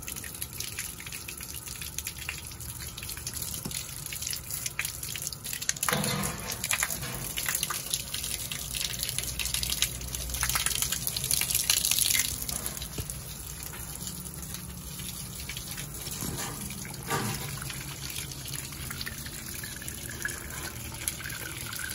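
Water spurting up out of a twin-pipe well jet ejector and splashing onto wet concrete while a garden hose feeds water into it. The flow grows louder for about two seconds midway, and there are two brief bumps, about six and seventeen seconds in.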